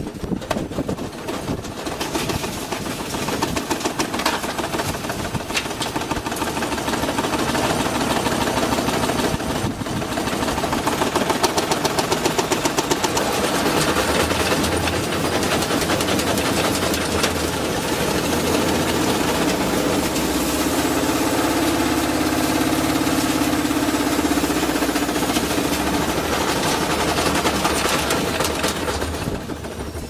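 Front-loading washing machine spinning its drum hard, a rapid continuous clatter of knocks over the motor's hum that grows louder after about ten seconds, with a steady whine coming in about two-thirds of the way through. The machine is being run to destroy itself.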